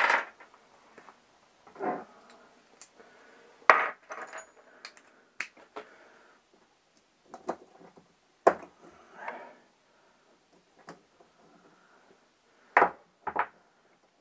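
Small metal hand tools and carburettor parts clicking and clinking on a workbench, with a few sharp knocks, as a small socket is fitted to unscrew the main jet of a Keihin two-stroke carburettor.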